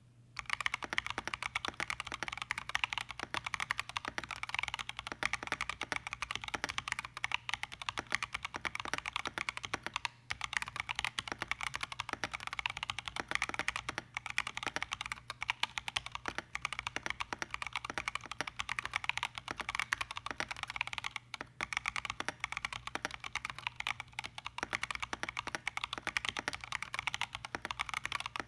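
Fast, continuous typing on a Skyloong GK61XS 60% mechanical keyboard with Gazzew Boba U4T tactile switches and MT3 keycaps, O-ring mounted with a tape mod and silicone-filled case: a dense stream of keystrokes, with brief pauses about a third and three quarters of the way through.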